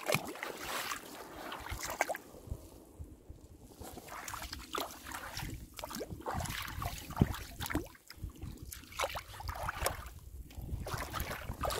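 Inflatable kayak being paddled through shallow creek water: irregular splashes and drips from the paddle and water lapping at the hull, with wind buffeting the microphone.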